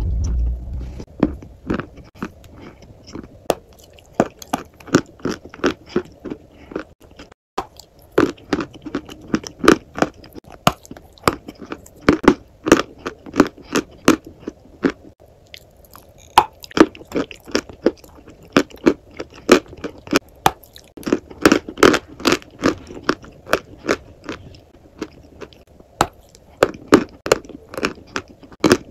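Close-miked crunching and chewing of a brittle white chalk-like block: crisp bites and crunches in quick runs of several a second, with brief lulls between mouthfuls.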